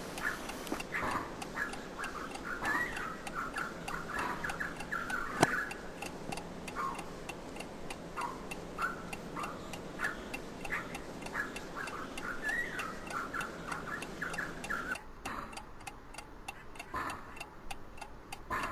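Steady, rapid ticking, like a clock mechanism, with short chirp-like calls laid over it until about fifteen seconds in and one sharp click about five seconds in.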